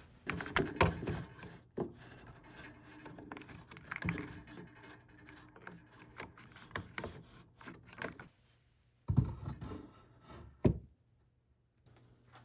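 Pieces of wood being handled and set down on a workbench: irregular knocks, rubbing and scraping, with two sharp louder thuds near the end.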